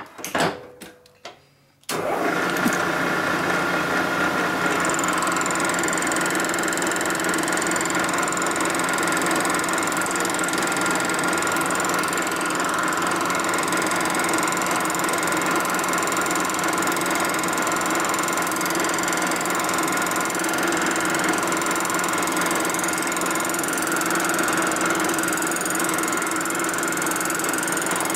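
A few short knocks, then about two seconds in a machine tool's spindle motor switches on and runs steadily with a constant hum and a high whine as it machines the cast-iron block of a Ford four-cylinder flathead engine.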